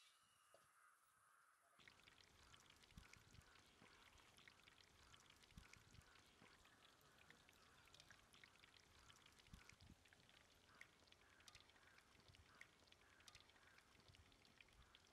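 Hot oil sizzling and crackling faintly as Suryakala sweet pastries deep-fry in a large iron kadai, a dense patter of tiny pops that starts suddenly about two seconds in.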